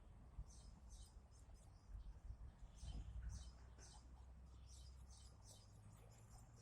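Nestling birds cheeping faintly: a run of short, high peeps repeated throughout, over a low rumble that swells in the middle.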